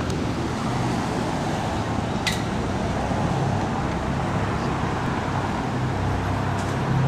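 Street traffic: a steady hum of cars passing, heavy in the low end, with one short click about two seconds in.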